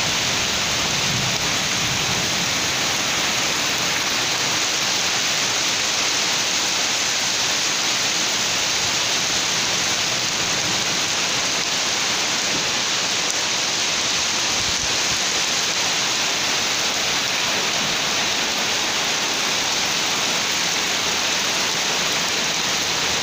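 Heavy rain pouring down, a steady, even hiss with no breaks.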